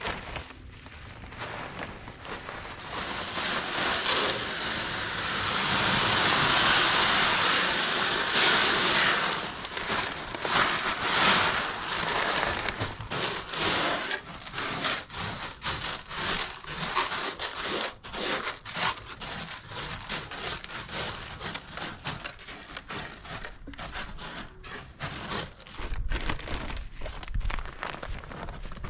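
Rustling, crinkling and scraping noise, loudest and densest for a few seconds about a fifth of the way in, then breaking up into many irregular small clicks and scrapes.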